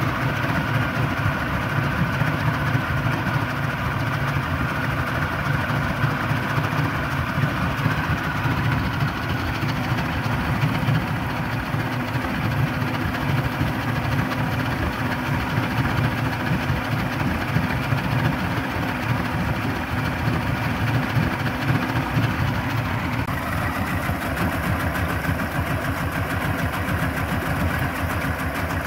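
2001 Yamaha 225 HP OX66 Saltwater Series outboard, a V6 two-stroke, idling steadily in a test tub of water after a cooling-system flush and a new water pump.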